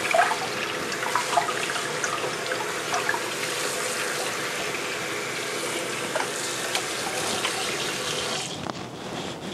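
Kitchen faucet running into a stainless steel sink, the stream splashing over whole fish in a glass baking dish as gloved hands rinse them, with small splashes throughout. The sound drops off near the end.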